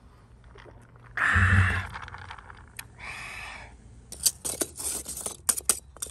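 Metal tongs clinking and scraping against pressed charcoal briquettes and a wire grill grate, many sharp clinks in quick succession in the second half. Before them comes a loud breathy rush about a second in and a softer one around three seconds in.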